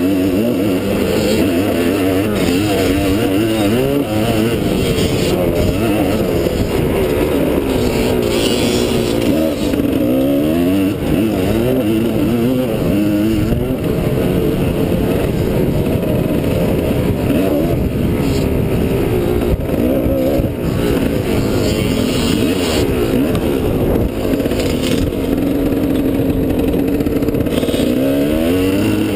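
Motocross dirt bike's engine heard from on board while riding, the revs repeatedly climbing and dropping back as the rider works the throttle and gears.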